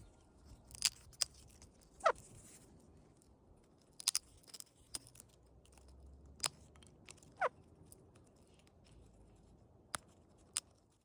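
Patagonian conure moving about its cage, making scattered sharp clicks and taps, with two short falling chirps.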